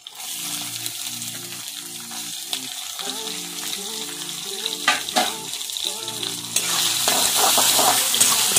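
Chopped coconut hitting hot oil in a kadai and sizzling, starting suddenly, over a tempering of dried red chillies, bay leaves, green chillies and cumin. Later it is stirred with a metal spatula and the sizzling grows louder.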